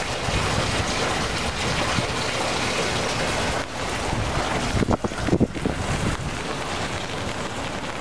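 Stormwater runoff rushing along a street gutter beside the curb, with rain falling, a steady wash of water noise. From about five seconds in, wind gusts thump on the microphone.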